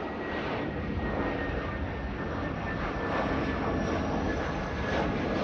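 Airliner jet engines running: a steady rushing noise with a thin high whine that drifts slowly down in pitch.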